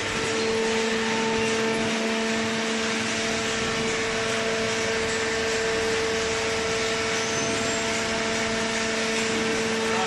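Hydraulic baler's electric motor and hydraulic pump running, a steady hum with a constant whine that does not change in pitch.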